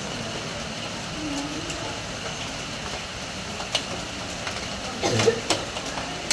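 Steady rain falling on a corrugated metal roof: an even hiss with scattered sharp taps of drops striking the metal sheets, and a louder cluster of knocks about five seconds in.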